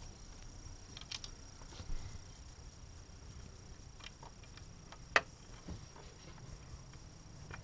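A few scattered sharp clicks and light taps, the loudest about five seconds in, with a soft thump near two seconds, over a faint steady high-pitched tone.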